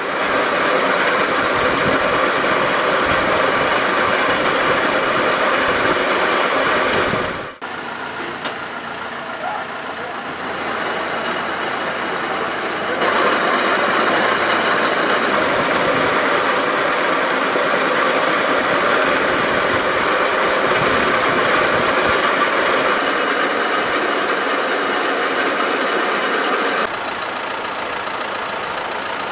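Farm machinery running steadily: a conveyor loading granular mineral fertiliser from a silo, and a John Deere 6105R tractor's diesel engine idling. The sound changes abruptly several times.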